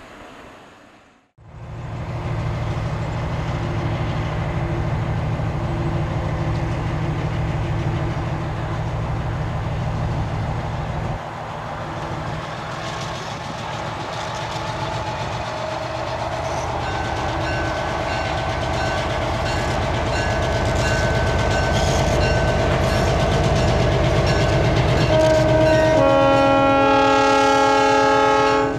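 EMD SW1500 switcher locomotive's diesel engine running as it approaches hauling freight cars, with wheels clicking over the rail joints. Near the end the locomotive's air horn sounds loudly, a chord of several tones.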